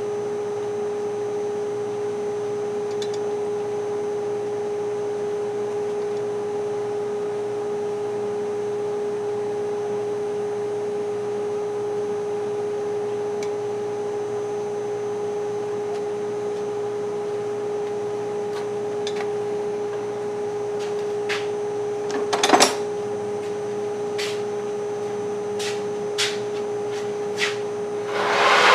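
A steady, unchanging hum, with a few sharp clicks and short bursts in the last third.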